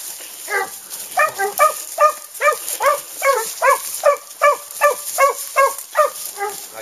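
Hunting dog barking over and over, about two to three short yelping barks a second, each falling in pitch: giving tongue into thorn scrub.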